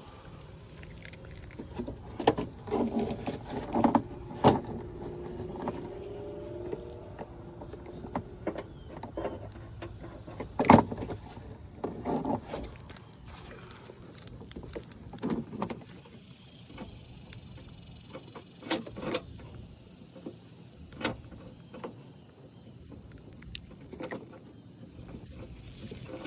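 Scattered clicks, knocks and scraping of a socket wrench and the plastic fender liner as a hand fumbles behind the liner, trying to fit a 10 mm socket onto the antenna base nut. There is a drawn-out scrape in the first few seconds and the sharpest knock near the middle.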